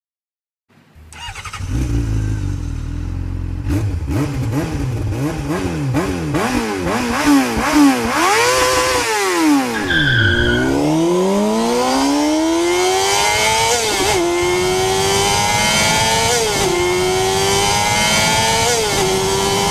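Motorcycle engine starting and being revved in quick blips, then accelerating through the gears, the pitch climbing and dropping back at each of three upshifts.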